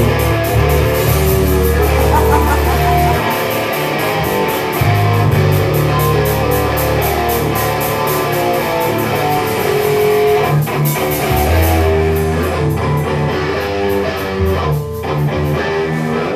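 Heavy metal band playing live: distorted electric guitar and bass riff with drums driving a fast, steady cymbal beat. There is no singing.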